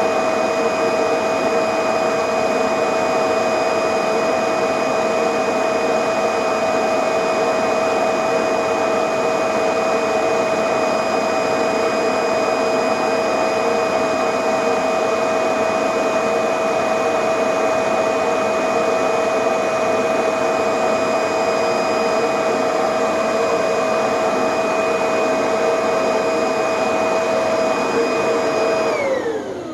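Vacuum cleaner motor running steadily with a high whine over rushing airflow, pulling air through a Hoover Type Y HEPA bag under a particle-count test. Near the end it is switched off and the whine falls in pitch as the motor spins down.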